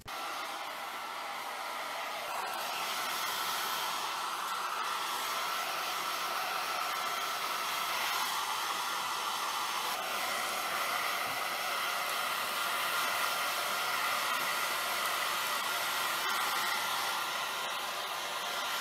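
Hair dryer blowing steadily: a constant airy hiss with a faint steady whine in it.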